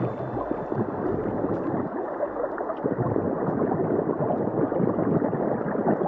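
Steady underwater bubbling and gurgling of scuba divers' exhaled air.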